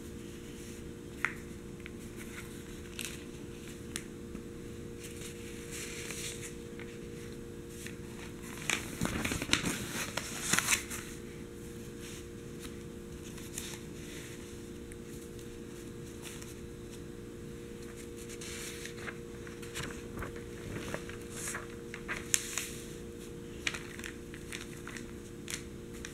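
A newspaper being handled with the hands: scattered light taps and soft rustles of newsprint, with a louder burst of crinkling paper about nine to eleven seconds in as the pages are lifted and moved, and more rustling and taps later on.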